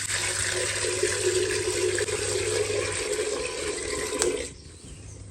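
Water pouring steadily into a container, with a ringing tone from the filling vessel, then cutting off about four and a half seconds in.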